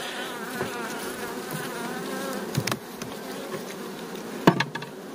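Honeybees (Carpathian Bukovinka strain) buzzing from an open hive, a wavering, many-voiced drone. Two sharp knocks, about two seconds apart, stand out over it.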